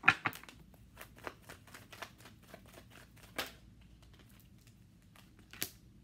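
A deck of tarot cards being shuffled and handled, a run of light, irregular card clicks and snaps with a few sharper ones.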